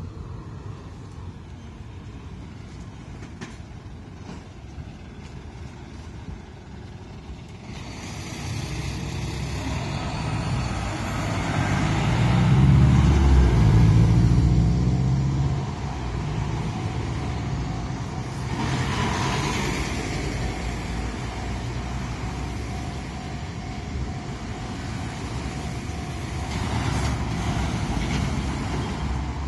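Road traffic: a heavy vehicle builds up and passes close, loudest about 12 to 15 seconds in, followed by steady traffic noise.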